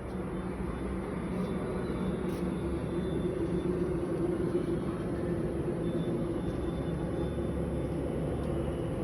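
Steady motor hum over a low rumble, like vehicle engines running nearby.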